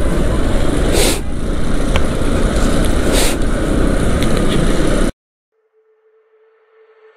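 Riding noise from a moving scooter in a busy street: a steady rush of wind and road noise with two short hissing surges, about one and three seconds in. It cuts off abruptly about five seconds in, and a soft held music note fades in near the end.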